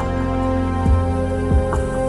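Instrumental theme music with long held notes over a low bass.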